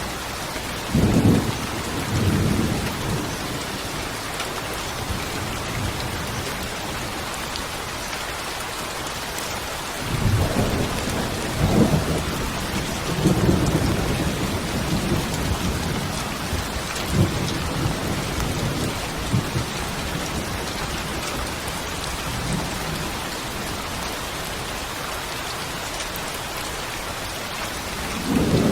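Steady rain hissing, with low rolls of thunder: a short rumble about a second in, a longer series of rumbles from about ten seconds in, and another starting right at the end.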